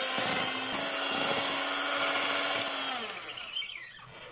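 Electric hand mixer running with a steady whine as its beaters whip thick cake batter, then switched off about three seconds in, its pitch falling as the motor spins down.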